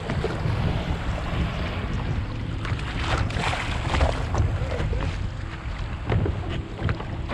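Wind buffeting the microphone in a low rumble, with small choppy waves slapping and splashing against a kayak's hull, a few sharper splashes about three to four seconds in.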